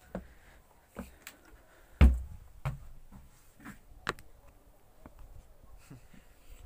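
Scattered knocks and taps from climbing on a plastic children's play structure, with the loudest a dull thump about two seconds in.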